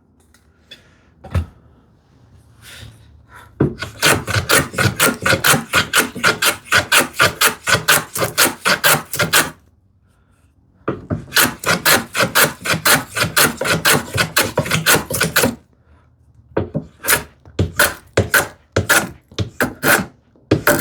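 Hand rasp scraping a small wooden piece in quick back-and-forth strokes, about four a second. The strokes come in two long runs with a short pause between, then slower separate strokes near the end.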